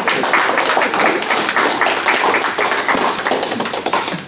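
Audience clapping, with voices mixed in, dying down just before the end.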